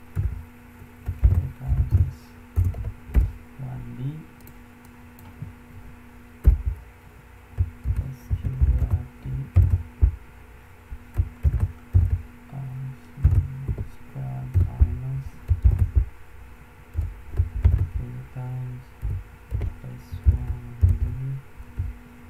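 Typing on a computer keyboard: irregular runs of quick keystrokes with dull thuds as the keys go down, over a steady low hum.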